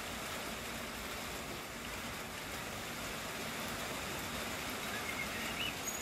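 Steady hiss of rain falling, with a few short bird chirps near the end.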